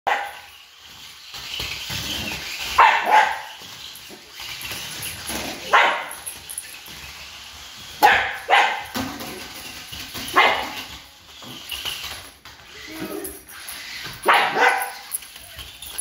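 Small dog barking at a remote-control stunt car it is chasing: short, sharp barks, often two in quick succession, repeated every few seconds.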